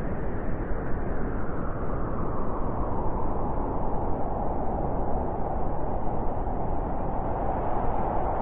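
Steady white noise played for sleep: an even, deep rushing hiss with most of its energy below about 2 kHz, no rhythm or tones.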